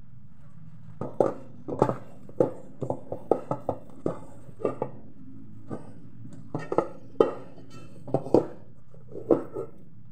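Hands kneading and squeezing a sticky minced-meat and flour dumpling mixture in a metal pot, with irregular knocks and clinks against the pot, some ringing briefly, over a steady low hum.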